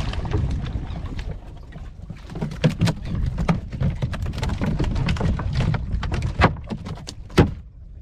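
A hooked queenfish splashing at the surface as it is hauled in by hand line, then a run of irregular knocks and thuds as landed fish flap about in the bottom of the boat, with two sharper knocks in the last two seconds.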